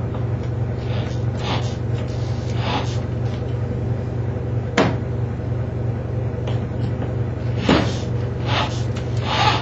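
A few sharp knocks and clatters from a power drill and a bearing being handled against a wooden box, over a steady low hum.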